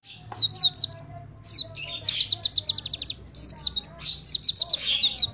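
Sogok ontong (sogon), a spiderhunter, singing loud bursts of sharp, fast down-slurred high notes, the second burst running into a rapid trill of about ten notes a second.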